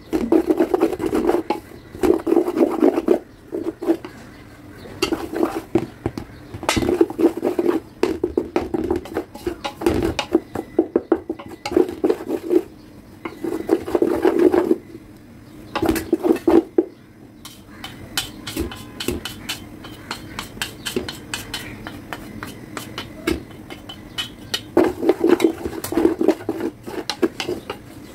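A spatula scraping and clattering against a large stainless steel bowl while stirring whole wheat flour to break up its lumps. It goes in bouts of quick strokes with brief pauses between them.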